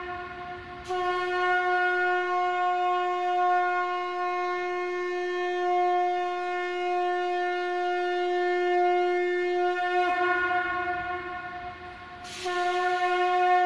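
Conch shell (shankh) blown in long, steady blasts on one note. A fresh blast starts about a second in and holds for roughly nine seconds, then sags and fades, and the next blast starts near the end.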